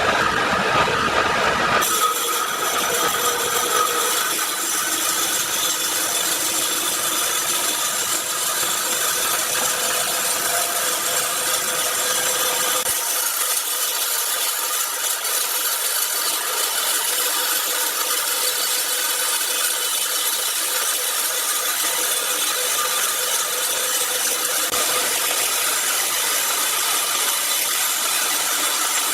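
Large power saw cutting steadily through a log, a continuous whining, rasping sound.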